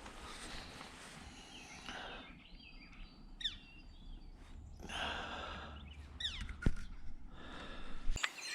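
Small birds chirping outdoors with quick falling notes, a few times in the middle, over two stretches of rustling noise and a steady low rumble that cuts off near the end.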